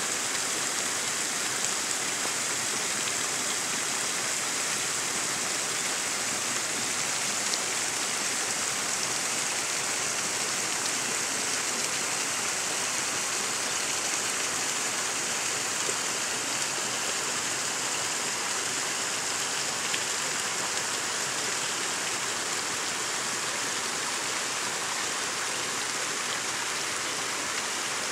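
Small brook running over stones and a fallen branch: a steady, even rush of water.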